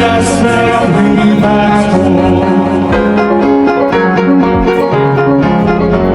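Upbeat instrumental backing music with keyboard melody and a steady beat.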